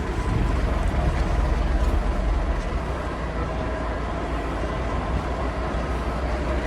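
A fire engine's engine running steadily with a continuous low rumble.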